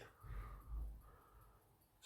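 Faint breath from a person close to the microphone, two soft puffs in the first second.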